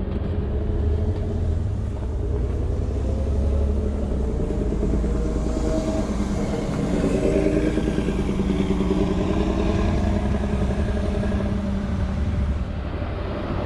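Road traffic: a motor vehicle's engine running close by over a low rumble, its note rising and falling as it passes and dropping away near the end.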